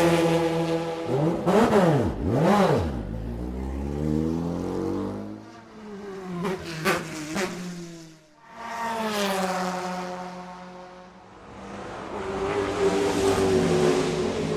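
Race car engines in a run of separate recordings. A pass-by fades out at the start. A USF2000 open-wheel car in the pit lane then revs hard twice, about two seconds in, and pulls away slowly. USF2000 cars pass by quickly, and a NASCAR stock car's V8 approaches and passes near the end.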